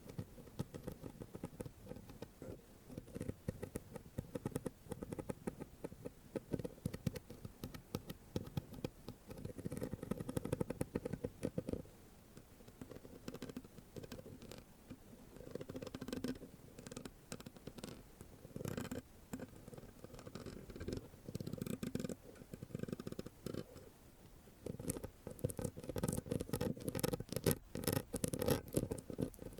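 Scratching directly on a microphone, close up: a dense run of rapid, rough strokes with a heavy low rumble and crackly clicks. The scratching eases off briefly about twelve seconds in and again around twenty-four seconds, then picks up.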